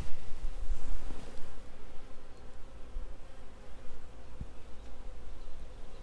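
Honeybees buzzing around their hive, a steady hum.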